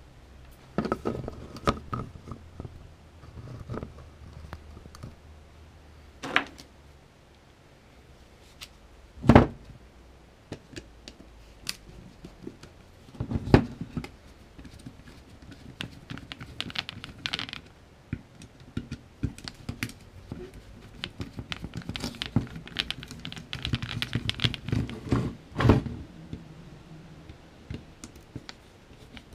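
Hands working on a plastic power-tool battery pack on a bench: scattered small clicks, scrapes and rustles, with three louder sharp knocks spread through.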